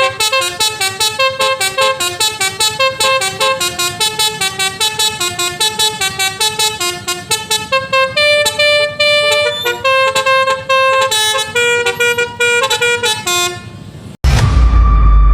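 Basuri telolet horn, a set of roof-mounted horn trumpets, playing a quick melody of short notes, slowing to longer held notes about halfway through. Just before the end it cuts abruptly to a low rumble with a single steady tone.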